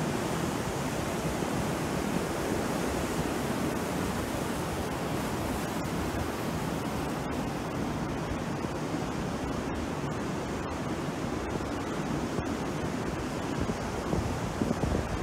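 Sea surf breaking and washing up onto a beach: a steady rushing of waves, a little louder near the end.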